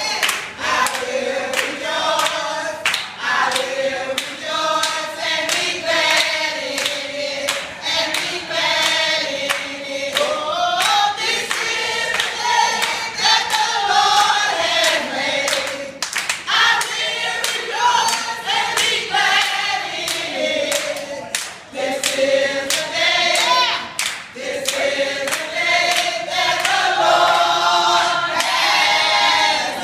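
A small group of women singing a gospel song together, with steady hand clapping on the beat.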